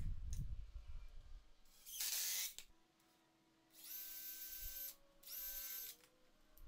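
Cordless DeWalt drill/driver run in three short bursts, the last two with a steady motor whine, as screws go into 2x4 leg pieces.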